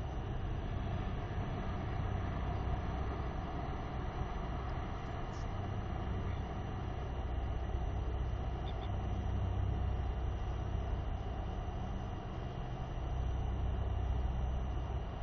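Wind buffeting an outdoor camera microphone: a steady low rumble with a hiss over it, swelling in gusts around the middle and near the end.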